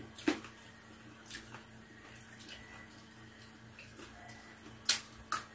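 Quiet eating at a table: faint chewing and handling of food, broken by a few short sharp clicks, the loudest just after the start and again near the end.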